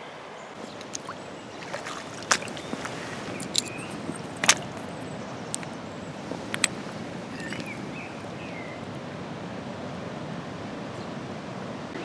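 Shallow river water running steadily over stones at small rapids, with several sharp clicks of stones knocking together on the stony bank a few seconds in.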